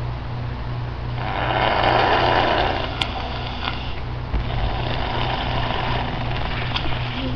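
Air blown hard through drinking straws into toy slime to blow bubbles in it. The blowing comes in two spells of about two to three seconds each, over a steady low hum.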